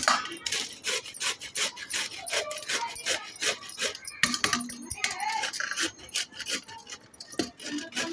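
Bottle gourd being grated on a stainless steel box grater: quick, regular scraping strokes, about three a second.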